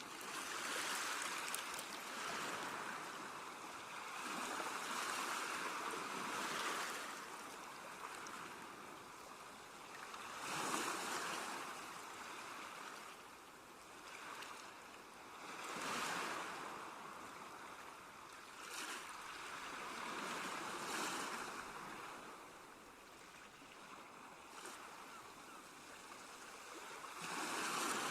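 Ocean waves breaking and washing up on a shore, each surge swelling and ebbing every few seconds.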